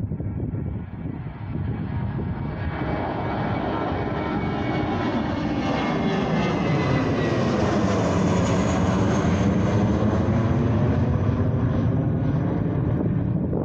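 Aeroplane engines passing close by, the noise swelling steadily as the aircraft approaches and loudest about eight to eleven seconds in.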